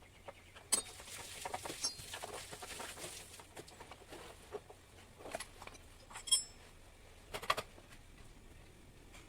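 Irregular metallic clicks and clinks of hand tools and hardware as the silencer's mounting bolt is put in and tightened on a Yamaha RX100, with a few sharper clinks about a second in and again later on.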